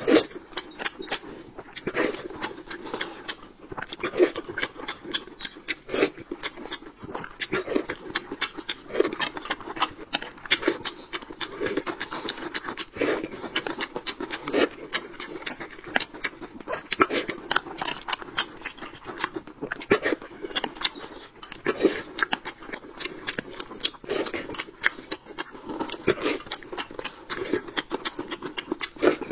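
Close-miked eating sounds: continual chewing with wet mouth smacks and clicks as two people eat dumplings and meat.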